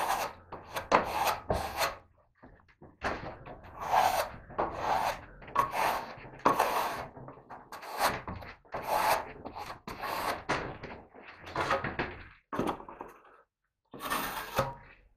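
Steel trowel scraping over fiberglass wall canvas wet with glue, in repeated sweeping strokes that press out the excess glue. There is a short pause about two seconds in.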